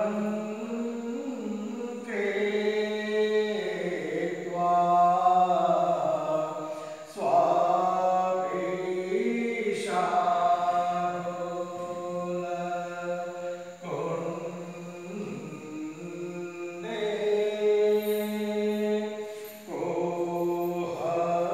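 Hindu aarti hymn being chanted in long, held sung phrases, breaking every few seconds before the next line begins.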